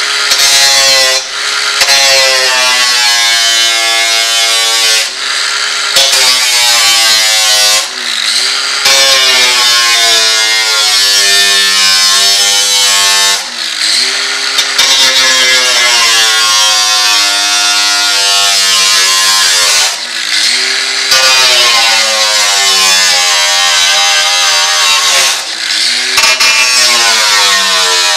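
Electric angle grinder with a thin cut-off disc slicing slots into a car's factory sheet-metal body panel. The motor's whine sags in pitch as the disc bites into the metal and climbs back again, with several short breaks between cuts.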